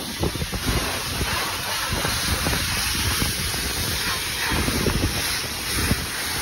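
Self-serve car wash high-pressure wand spraying soapy water onto a car's boot and rear window: a steady hiss of spray, with wind buffeting the microphone.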